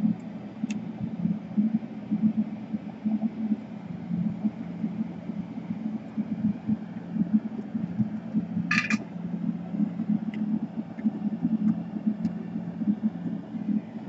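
Steady low mechanical hum and rumble of a running machine, with a quick pair of sharp clicks about nine seconds in.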